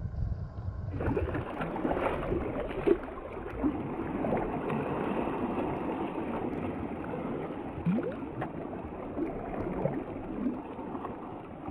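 About a second of low wind rumble on the microphone, then sea water splashing and sloshing close by with many small irregular splashes, as a school of bluefin tuna breaks the surface around a kayak. The water sound cuts off suddenly near the end.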